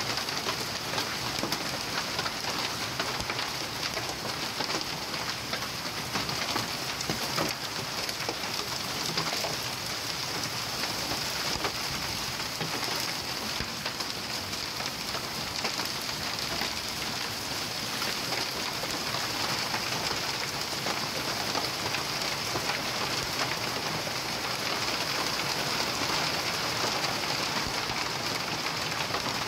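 Heavy downpour of rain mixed with hail, a dense, steady hiss of countless drops and hailstones striking roof tiles, a balcony floor and the street.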